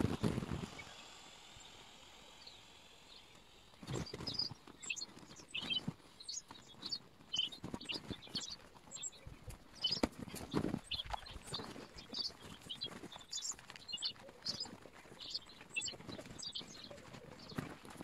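Sped-up, ten-times-fast sound of a large vinyl inflatable being squashed and deflated under a person's weight: rustling thumps, the loudest right at the start and about four and ten seconds in, with a rapid scatter of short high chirps from about four seconds on.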